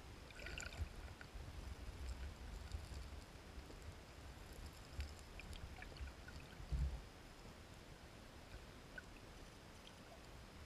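Underwater sound of a shallow stream: a low rumble with soft muffled thumps and scattered small gravel clicks as spawning sockeye salmon stir the gravel streambed, with one louder thump about seven seconds in.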